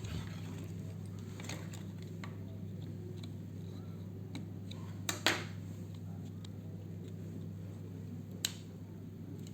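Plastic snap-fit clips of a TV remote's case clicking as they are prised open with a screwdriver: a few light clicks, a louder double click about five seconds in and another near the end, over a steady low hum.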